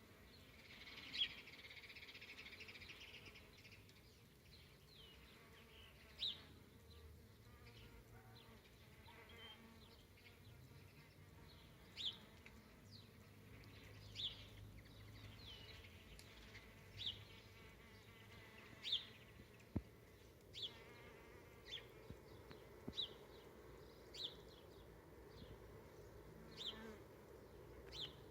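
Bees buzzing faintly, while a bird gives short, high chirps every second or two, more often in the second half.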